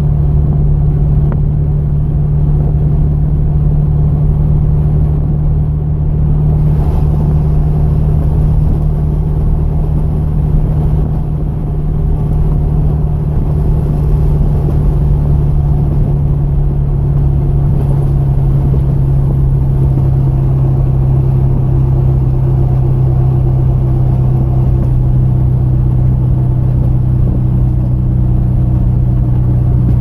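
Engine and road noise of a car cruising, heard from inside the cabin: a steady low drone whose pitch sinks slightly about halfway through as the car slows.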